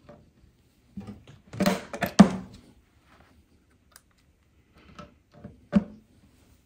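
Short clicks and knocks from hands working on a flat-pack drawer, setting the small plastic fitting on the drawer side: a cluster of knocks about a second in, the loudest just after two seconds, and one more sharp knock near the end.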